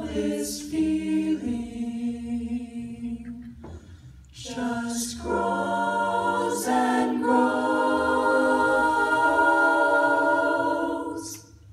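Vocal jazz ensemble singing close chords a cappella into handheld microphones. The sound thins out around four seconds in, swells back, and settles into one long held chord that the singers cut off together near the end, with crisp hissed consonants at the phrase ends.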